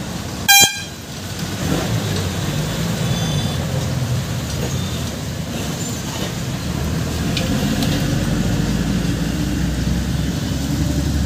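A vehicle horn gives one short, loud toot about half a second in, over a steady low rumble of road traffic that grows a little louder in the second half.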